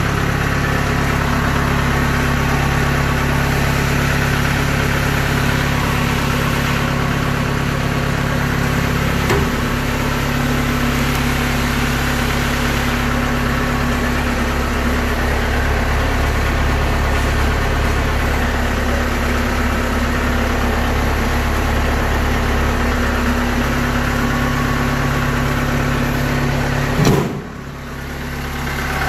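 Kubota DC70 combine harvester running steadily on its test run, a dense, even machine drone from its engine and threshing drives. A sharp knock comes near the end, followed by a brief dip in loudness.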